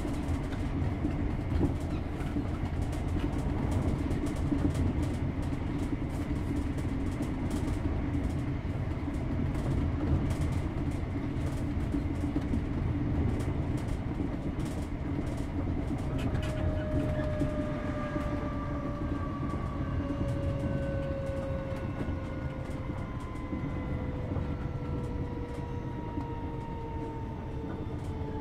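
Class 321 electric multiple unit heard from inside a passenger coach, running with a steady low rumble from wheels and track and frequent short clicks over the rails. About halfway through, a whine from the traction motors comes in and falls slowly in pitch as the train slows.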